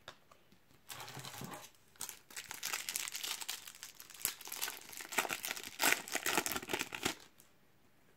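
A Match Attax trading-card packet being torn open and handled: a short crinkle about a second in, then several seconds of dense crinkling of the wrapper.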